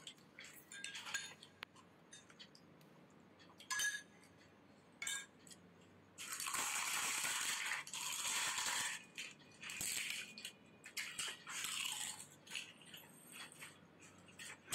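Crisp panipuri shells being cracked open and spoons clinking against small glass bowls, in scattered sharp clicks; about six seconds in comes a few seconds of dense crunching, with more bursts of it after.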